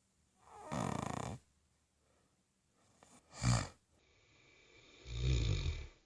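A woman snoring loudly in her sleep: three snores, a second-long one about a second in, a short sharp one around the middle, and a longer one near the end.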